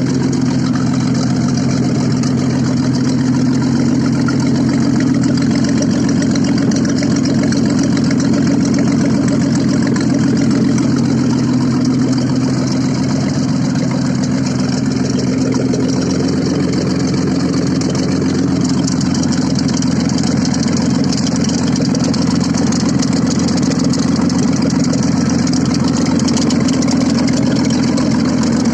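Audi engine idling steadily with no exhaust system fitted, so the engine's open exhaust note is heard directly.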